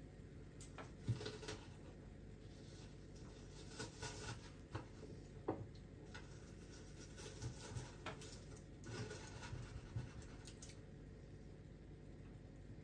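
Faint kitchen handling sounds: scattered light scratches and clicks over a steady low hum.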